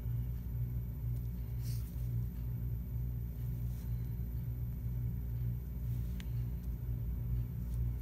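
Steady low machine hum with a slow, regular throb, and a few faint clicks.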